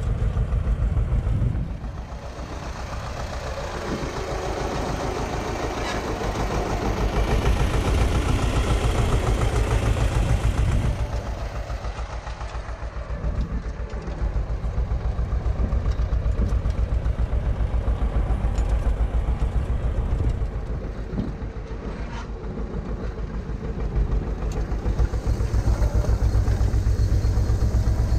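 Diesel tractor engine running steadily as it pulls a steel-wheeled grain drill across a seedbed, growing louder and softer as the tractor comes near and moves off, with a few light clicks from the drill.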